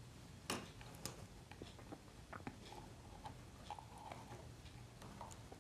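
Faint, scattered mouth clicks and soft breathing from a man pausing between words to collect himself, over quiet room tone.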